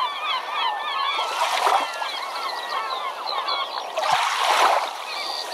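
Many birds calling at once, short chirping calls overlapping throughout. Two louder rushes of noise break through, one about one and a half seconds in and one about four seconds in, the second with a couple of low thuds.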